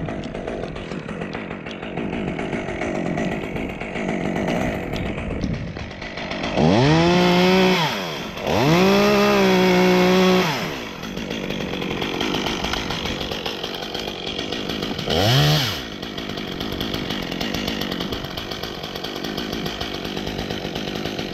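Stihl top-handle two-stroke chainsaw idling, revved to full throttle twice in a row about a third of the way in, the pitch climbing and then holding. It gets one more short blip of throttle a little past halfway.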